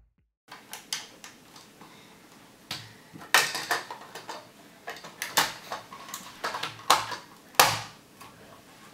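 Irregular clicks and clatter of plastic Lego pieces being handled and fitted together, with a few louder knocks.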